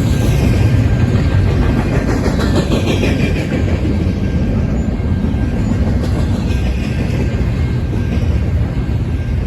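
Freight train cars rolling past at speed: a loud, steady rumble of steel wheels on rail, with a few faint falling whines from the wheels.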